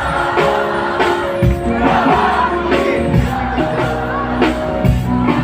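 Live concert performance: a band with a steady drum beat and held instrumental notes, with a sung vocal line over it.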